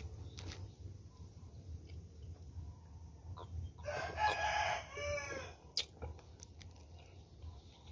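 A rooster crowing once, a single crow of about two seconds that ends with a falling, arching tail. A sharp click comes just after it.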